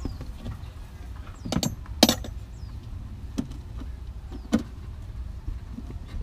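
A few sharp clicks and knocks from hands handling the wiring at a car amplifier, the loudest about two seconds in, over a steady low rumble.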